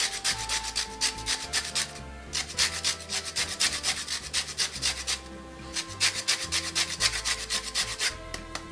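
Lemon rind being grated on a small handheld zester: a quick run of short scraping strokes, pausing briefly about two seconds in and again about five seconds in.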